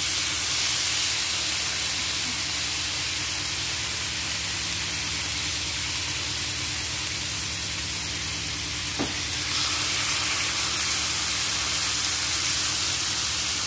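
Raw bacon strips sizzling in hot oil in a nonstick frying pan: a steady high frying hiss over a low constant hum, with a single light click about nine seconds in.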